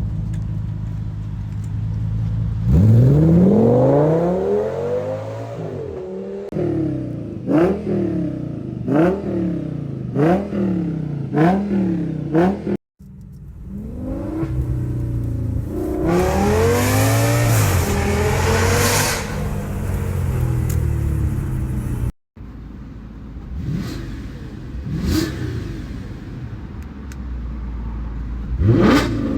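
Audi S8 D3's V10 engine and exhaust idling and being revved in three short clips. The first holds one rev about three seconds in, then a run of about five quick throttle blips; the second holds a longer rev that climbs and falls in the middle; the third holds a few more blips near the end.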